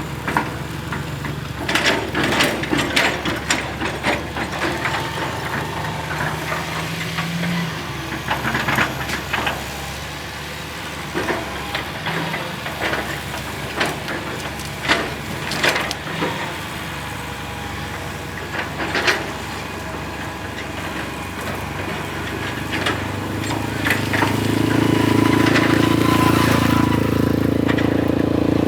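Hitachi EX220-1 long-reach excavator's diesel engine running steadily, with scattered sharp knocks and clanks from the working machine. Near the end the engine note grows louder, as under heavier hydraulic load.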